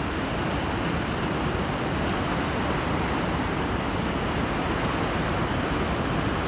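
Steady rush of a river in flood running at about 7,400 cfs, water pouring over rocks and across the paved bank.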